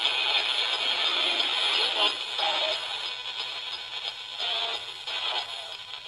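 A handheld radio used as a spirit box, sweeping through stations: a steady static hiss broken by brief snatches of broadcast voice and music every second or so.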